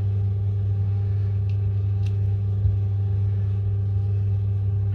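A steady low electrical hum, with a few faint light clicks scattered through it.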